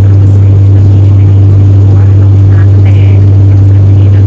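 Steady, loud low drone of an ATR turboprop's propellers heard inside the passenger cabin, with a fainter steady hum above it.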